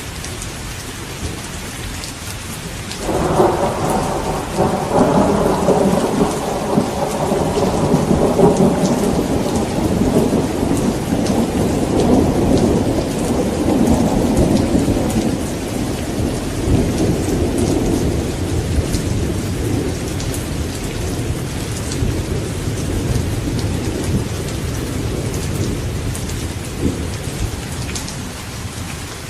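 Steady rain with a long rumble of thunder. The thunder breaks suddenly about three seconds in and rolls on for some twenty seconds, slowly fading back into the rain.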